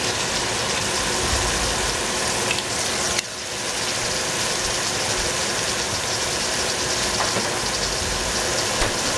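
Green cauliflower sizzling in a hot pan with cooking wine, a steady hiss, with one sharp click about three seconds in.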